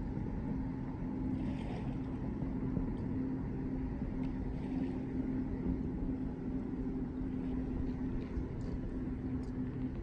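A distant engine running steadily: a low rumble with a constant hum.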